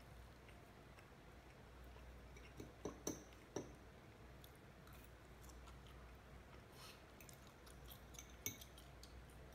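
Metal fork clinking and scraping against a ceramic plate in a few short knocks, a quick cluster of them about three seconds in and a sharp click near the end, over a low steady hum.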